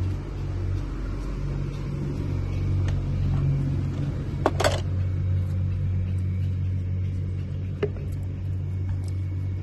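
A steady low hum runs throughout, with a sharp click about four and a half seconds in and fainter clicks later on.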